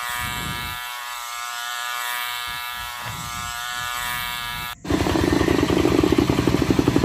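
Single-cylinder diesel engine of a Land Master two-wheel tractor running steadily as it pulls a traditional wooden sesame oil press (chekku) round in a circle. It starts as a thin, even buzzing hum; about five seconds in it turns into a louder, rapid chugging.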